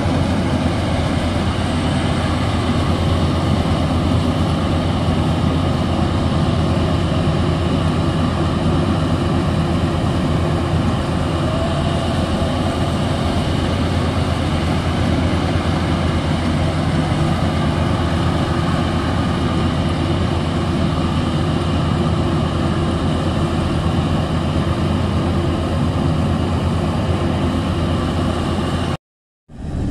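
Maxxi Bimo 102L rice combine harvester's engine running steadily under load as it harvests. The sound is a constant heavy drone and drops out briefly near the end.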